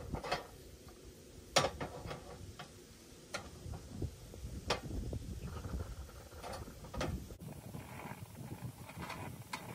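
Soto ST-952 hot sandwich maker's metal plates and handles clicking and clacking as the press is handled, opened and shut, a scattered series of sharp metallic clicks with the loudest about one and a half seconds in. A low steady rumble runs underneath.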